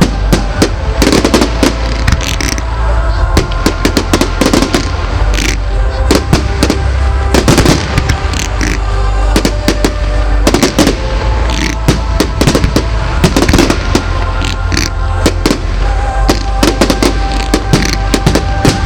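Fireworks display: a dense, unbroken barrage of bangs and crackles from bursting shells, with music playing underneath.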